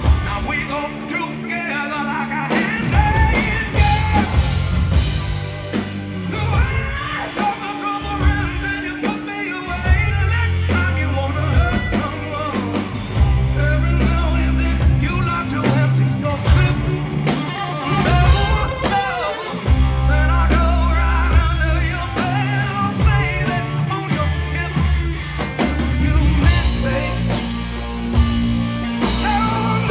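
Blues-rock band playing loud and live: distorted electric guitar, bass and drums, with a singer's voice.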